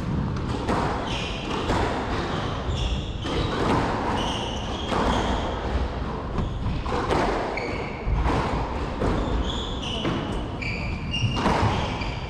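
Squash rally on an indoor court: the rubber ball cracks off rackets and walls about once a second. Between hits, players' shoes give short, high squeaks on the court floor.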